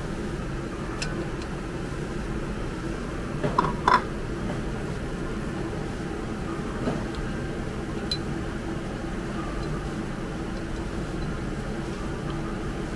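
Steady machine hum of a ramen shop, with faint scattered clicks and a couple of sharp tableware clinks about four seconds in.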